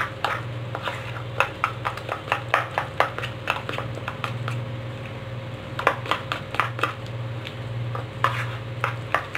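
Steel spoon clinking and scraping against a steel bowl while stirring thick gram-flour pakora batter, in irregular clinks about two or three a second. A low steady hum runs underneath.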